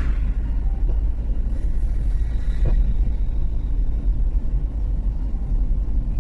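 Steady low rumble of a car on the move: engine and road noise heard from inside the cabin.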